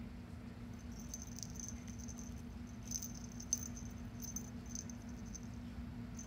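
A kitten paws and bites a beaded feather wand toy, which gives short, high tinkling rattles every second or so, with one sharp click about halfway through. A steady low hum runs underneath.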